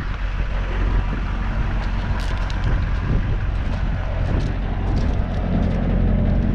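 The M1008 CUCV's 6.2-litre diesel V8 idling steadily, with scattered footsteps crunching on gravel.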